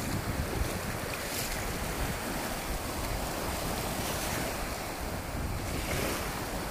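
Small sea waves breaking and washing up a sandy shore in a steady surf hiss, with wind buffeting the phone's microphone in a low rumble.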